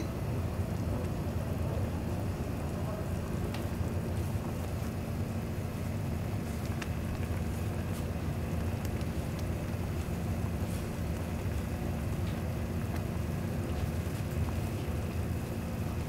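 Shabu-shabu broth boiling in a steel hot pot: a steady, rain-like bubbling hiss over a low rumble, with a few faint clicks.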